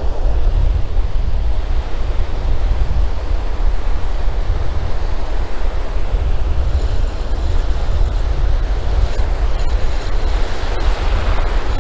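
Ocean surf breaking and washing up the beach in a steady wash, with wind buffeting the microphone in a heavy low rumble.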